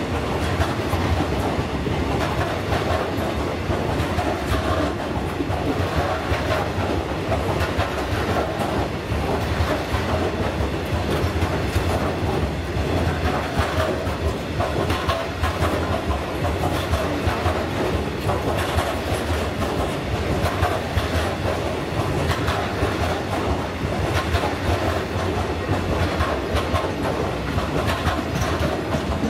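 Freight train of bogie hopper wagons rolling past, wheels clattering steadily on the rails over a continuous low rumble.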